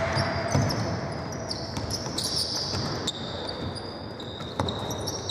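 Basketball being played on a hardwood court: sneakers squeak in short, high squeals again and again, and a basketball bounces with a few thuds, over the hollow noise of a large sports hall.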